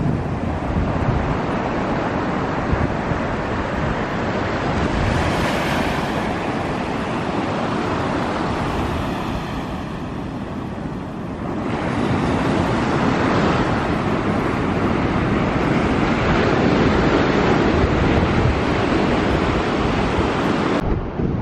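Small waves breaking and washing up a sandy beach: a steady rush of surf that eases off near the middle and builds again, with wind buffeting the microphone.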